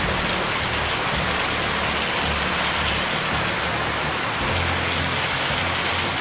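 A heavy hailstorm with rain pelting down, making a dense, steady hiss.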